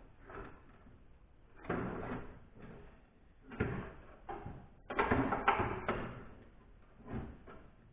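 Clunks and rattles of a broken car window regulator assembly being handled and worked loose inside a door shell, in several separate bursts with short pauses between.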